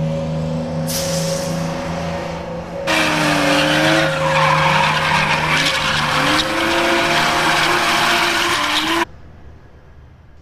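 Car engine sound effect running steadily, then from about three seconds in revving with rising pitch over loud tyre skidding noise. It cuts off abruptly about nine seconds in, leaving a faint hum.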